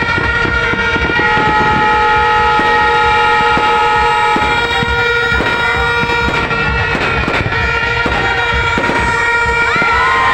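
Several horns held in long steady blasts that overlap, over a constant run of firework bangs and crackles.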